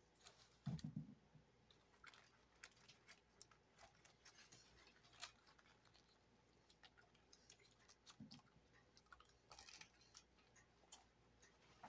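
Faint chewing of a toasted sub sandwich with hard, crusty bread: scattered small clicks and crunches, with two brief low mouth sounds about a second in and again near eight seconds.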